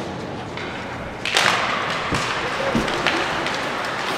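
Ice hockey faceoff: about a second in, a sudden clatter of sticks and skates scraping the ice as the puck is dropped, followed by a few sharp knocks of sticks and puck on the ice.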